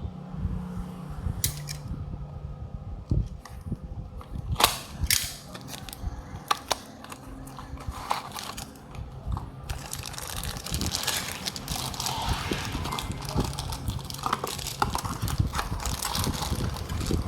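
Hands handling small cardboard toy boxes and die-cast cars: scattered sharp clicks and taps, then continuous rustling and crinkling of packaging from about ten seconds in.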